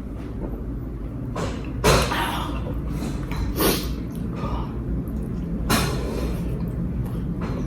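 Close-mic noises of someone eating fried pork: four short noises about two seconds apart, over a steady low hum.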